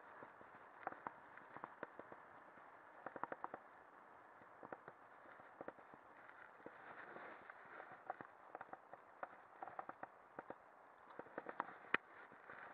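Lapierre mountain bike rolling along a gravel track: a faint steady crunch from the tyres with scattered irregular clicks and rattles from the bike, and one sharper knock near the end.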